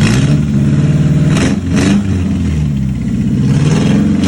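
Suzuki Futura 1.5-litre fuel-injected engine running, its revs rising and falling with the throttle, with two brief sharp noises about a second and a half in.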